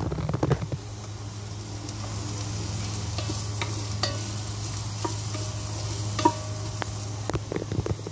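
Chopped onions sizzling in oil in a pot, stirred with a wooden spatula that scrapes and knocks against the pot now and then, the sharpest knocks about half a second and six seconds in. A steady low hum runs underneath.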